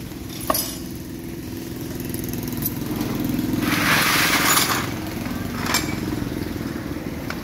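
Inline-six diesel engine running on a stand, a steady low rumble, with a hiss for about two seconds in the middle and a few sharp metal clicks.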